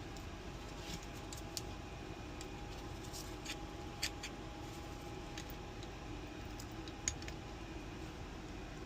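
Small, sharp metal clicks and taps from a Schlage lock cylinder's parts being handled and fitted back together, scattered through a steady background hum, with the sharpest clicks about four and seven seconds in.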